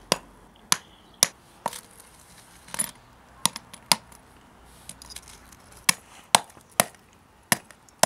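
Steel claw hammer knocking apart solidified thermite slag crusted around a padlock: about ten sharp, separate strikes at an uneven pace, with a pause of nearly two seconds midway.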